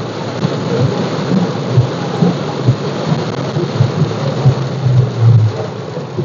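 Heavy rain pelting a car's windshield and roof, heard from inside the car as a dense, steady hiss, with irregular low thumps and rumbles beneath it.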